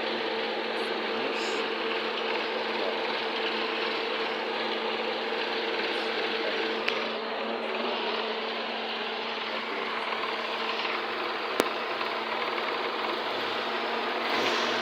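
Car engine idling steadily, its exhaust joint freshly sealed with exhaust gum paste, with a steady hum and two short sharp clicks partway through.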